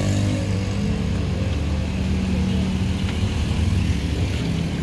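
Street traffic: car and motorcycle engines running by with a steady low hum, over the sizzle of bananas frying in a wok of oil.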